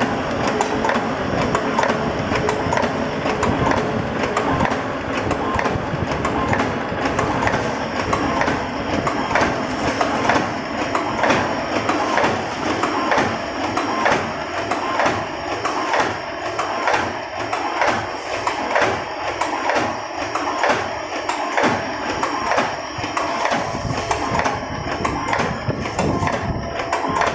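Automatic split pin (cotter pin) making machine running, its mechanism clacking in a steady, regular rhythm over a continuous mechanical hum.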